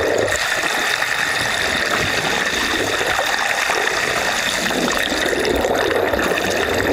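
Steady rush of moving water, sloshing and trickling, with a faint high-pitched whistle gliding briefly about five seconds in.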